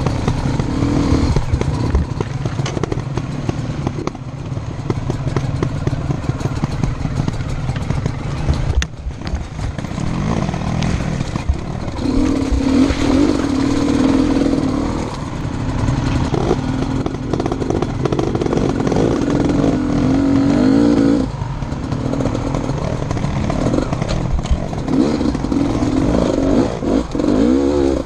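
Enduro motorcycle engine running hard, its pitch rising and falling with the throttle. It revs up several times, and once drops away suddenly.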